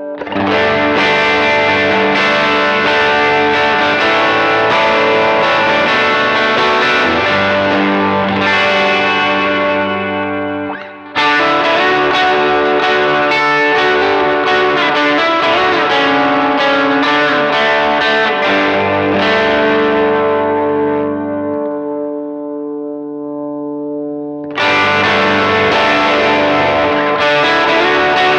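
Electric guitar played through the Very Good Amp Co EP Drive, an overdrive and preamp-style boost pedal, giving a driven, harmonically rich tone. Chords are struck and left to ring out three times: about half a second in, about 11 seconds in and near the end.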